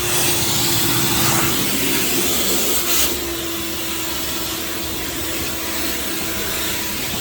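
Shop-Vac wet/dry vacuum running, a steady hiss of air rushing through the hose over a constant motor whine. About three seconds in, the hiss changes and the sound drops slightly in level.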